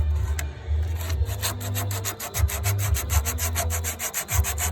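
Rolled strip of 120-grit sandpaper worked rapidly back and forth inside the metal door-hinge insert hole of a Jeep Wrangler JK, a fast scratchy rasping of about eight strokes a second that starts about a second in, cleaning the hole of dirt and corrosion.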